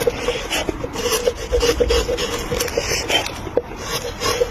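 A hand tool scraping and rubbing on wood in quick, repeated strokes, with short squeaks and small clicks among the strokes.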